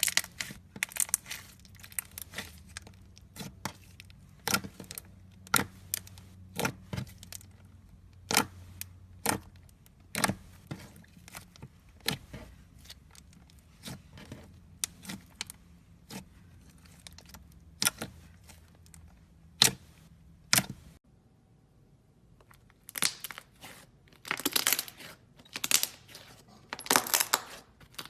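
Butter slime made with plasticine being squeezed and pressed by hand, giving a run of sharp clicks and pops. Later on the pops come closer together as crackly, squelching bursts.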